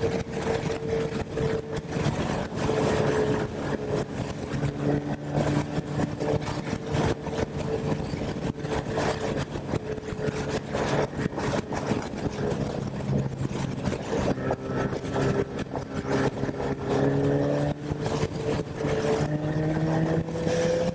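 Honda CB1000R's inline-four engine running at a steady cruise, its pitch rising over the last several seconds as it accelerates, with wind buffeting the camera's microphone.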